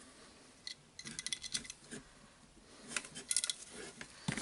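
Light clicks and clinks of small parts being handled during reassembly of a cordless jigsaw: a cluster of quick taps about a second in and another about three seconds in.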